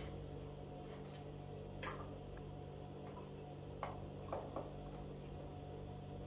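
A few faint, separate clicks and taps of kitchen utensils, about two seconds in and again near four and four and a half seconds, over a low steady hum.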